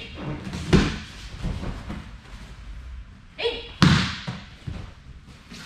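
Aikido partner taken down onto tatami mats during a sankajo wrist-lock pin, with two heavy thuds of body and feet on the mats, one about a second in and a louder one near four seconds. A short voiced cry comes just before the second thud.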